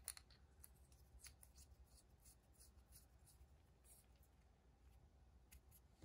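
Very faint handling sounds: light scrapes and small ticks as the metal barrel of a Retro 51 Tornado rollerball is twisted and screwed back together after a refill change.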